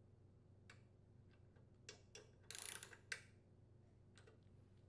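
Faint ratcheting clicks of a torque wrench tightening the lawn mower engine's muffler mounting bolts: a few scattered ticks, a quick run of clicks a little past halfway, then a single sharper click.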